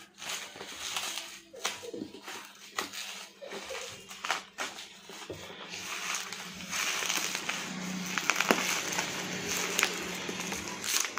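Bubble wrap crinkling and rustling as it is handled and pulled off a cardboard box, with many short sharp crackles, busier and louder in the second half.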